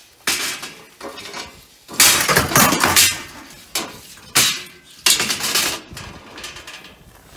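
Loose metal bar grille of an old motorhome rattling and scraping in a run of loud clattering bursts as it is pulled up by hand, the biggest about two seconds in.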